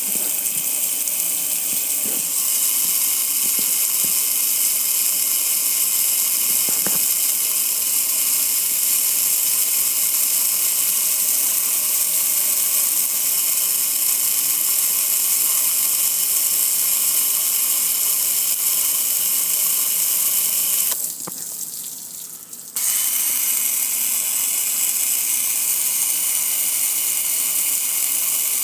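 Water spraying steadily onto a gas grill and pouring off it in a steady hiss; about three quarters of the way through the spray drops away for a couple of seconds, then comes back at full strength.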